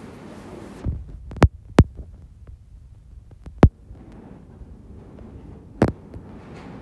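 About five sharp thumps, two close together near the start, the loudest one about halfway through and another near the end, over a low steady hum.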